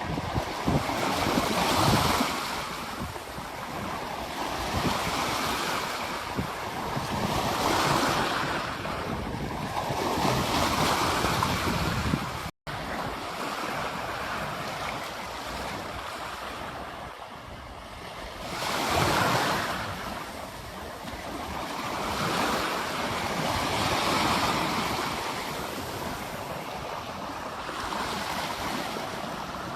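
Ocean waves breaking on a beach. The surf swells and fades every few seconds, and the sound cuts out very briefly about halfway through.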